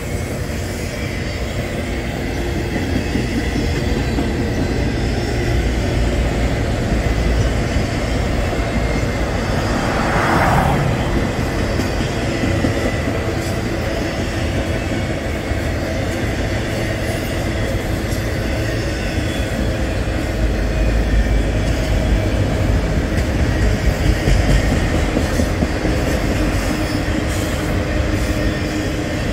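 Autorack freight cars rolling past on the rails: a steady low rumble of wheels on track, with a brief louder, higher noise about ten seconds in.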